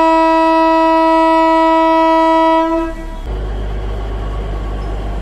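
A narrow-gauge train's locomotive horn sounding one long, single-pitched blast that cuts off about three seconds in, followed by a steady low rumble as the train gets under way.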